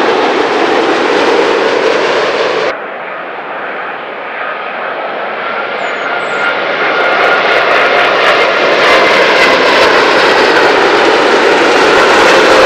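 Twin-engine jet airliners on landing approach, the steady noise of their engines with a faint whine over it. About two and a half seconds in, the sound cuts abruptly to a second jet. That one is quieter at first and grows louder as it comes closer.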